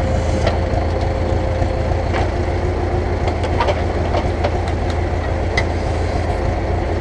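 Ursus tractor's diesel engine running steadily while its front loader works, with scattered light clicks and knocks.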